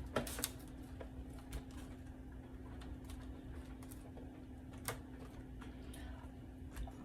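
Light, scattered taps and clicks as ravioli are set one by one into a greased baking pan, over a faint steady low hum.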